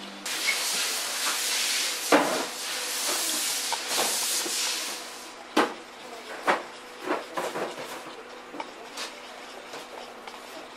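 Liquid poured from a metal can into a plastic paint mixing cup, a steady splashing hiss for about five seconds. Then a wooden stir stick works the paint mix, knocking against the cup several times.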